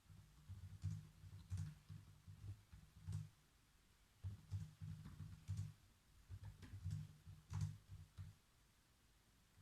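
Typing on a computer keyboard: quick runs of soft, dull keystrokes with some sharper clicks, in three bursts with short pauses between, stopping about a second before the end.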